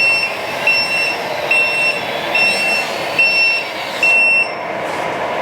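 Reversing-alarm beeps from the 1/14 LR914 RC wheeled excavator's sound module, a steady beep-beep about once a second that stops about four seconds in, over the steady noise of the model driving.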